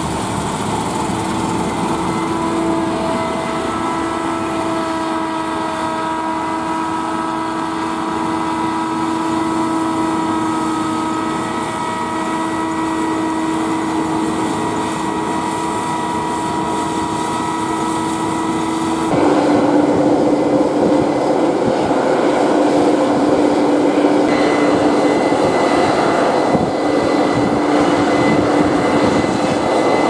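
Case IH Axial-Flow combine harvester running while cutting wheat: a steady machine hum and whine of engine and threshing gear. About two-thirds of the way through, the sound jumps louder and changes pitch.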